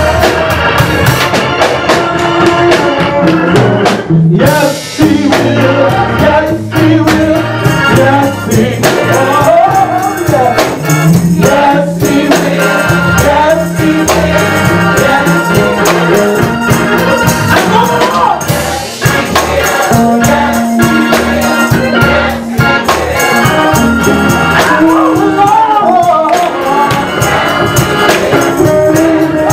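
Live gospel music: a man singing into a handheld microphone over a band with drum kit and keyboard.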